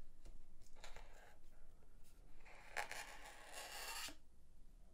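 Cardboard watch box being handled and opened: faint rubbing and scraping of hands and card. There is a short scrape about a second in, and a longer one from about halfway until near the end as the lid comes off.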